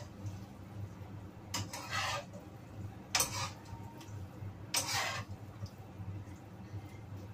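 Spatula scraping and tossing noodles against a wok during stir-frying: three short scrapes about a second and a half apart.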